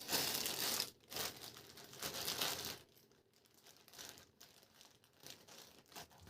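Plastic packaging being handled and crinkling, in two longer rustling bursts, then a few shorter, fainter rustles.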